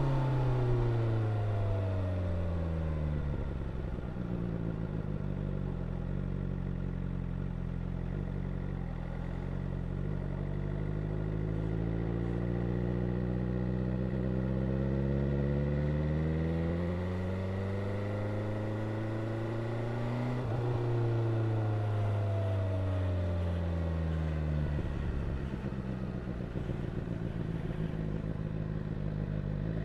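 BMW S1000R's inline-four engine and exhaust while riding. The revs drop over the first few seconds, then climb slowly for about fifteen seconds. They break off suddenly about two-thirds through and fall away, then climb again near the end.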